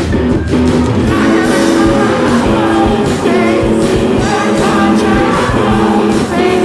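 A live rock band playing loud, with electric guitar, bass and drums, and a woman singing in a shouted voice over it.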